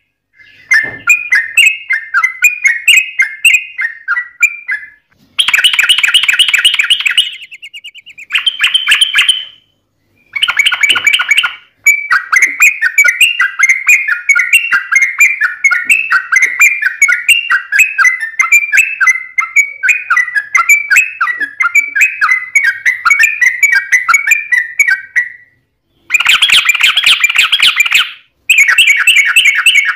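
Yellow-vented bulbul (trucukan) song: long runs of rapid bubbly chattering notes, the longest lasting about thirteen seconds, broken up by several short, harsher rasping rattles.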